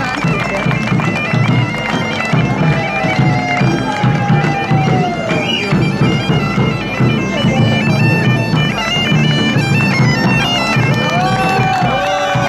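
Bagpipes playing a melody over a steady drone. Voices call out with gliding cries a few seconds in and again near the end.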